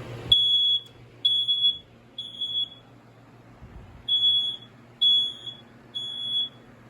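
Piezo smoke alarm sounding its temporal-three pattern, the standard evacuation signal: two sets of three high-pitched beeps, each about half a second long, with a pause of about a second and a half between the sets.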